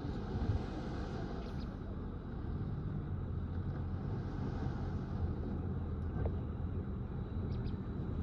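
Bulldozer's diesel engine running steadily under load, a low, even rumble.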